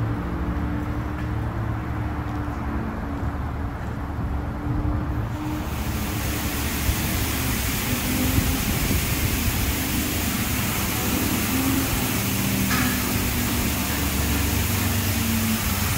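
Ryko Pulse touch-free car wash running: a steady low pump and motor hum, then about five and a half seconds in its gantry starts spraying water onto the car, a steady loud hiss over the hum.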